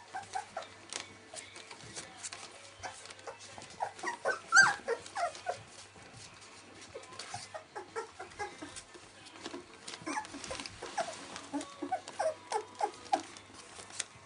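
Nineteen-day-old Welsh Springer Spaniel puppies whimpering and squeaking, many short high cries coming in clusters. One cry about four and a half seconds in is much louder than the rest.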